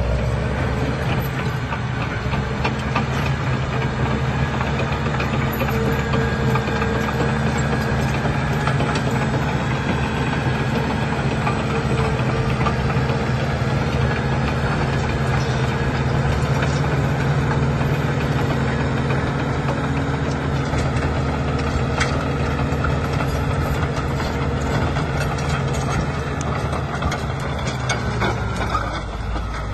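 Caterpillar D6R crawler dozer's diesel engine running steadily as the machine crawls over rocky ground, with a continual clatter of steel tracks and knocking stones over the engine note.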